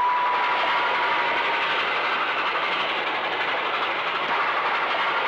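A steam-hauled passenger train running along the line, making a steady rushing noise. A held high tone fades away over the first two seconds.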